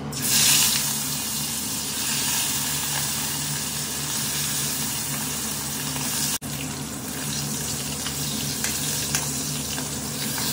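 Fish pieces sizzling as they fry in hot oil in a kadai. The sizzle flares loudest about half a second in, as a piece is slid into the oil, then runs on steadily, broken for an instant about six seconds in.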